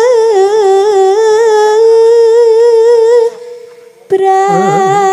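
A sinden, a female Javanese singer, holds a long sung note with a wavering vibrato. It breaks off about three seconds in, and a second later she takes up a slightly lower held note.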